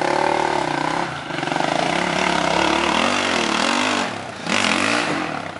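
Enduro motorcycle engine revving hard as the bike climbs a steep sandy slope, its pitch rising and falling with the throttle. It dips briefly about four seconds in, then surges again.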